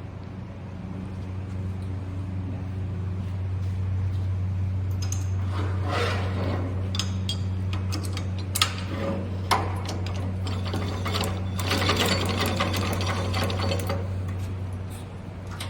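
Ellis Model 4000 miter band saw running, its 2 HP motor giving a steady hum. From about five seconds in, a rougher, noisier sound with a few sharp clicks joins it and dies back near the end.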